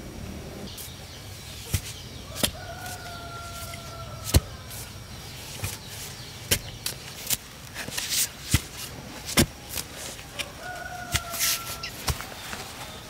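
Irregular sharp strikes of a blade chopping bamboo, a few a second at the busiest, with one hard blow about four seconds in. A rooster crows twice in the background, near the start and again near the end.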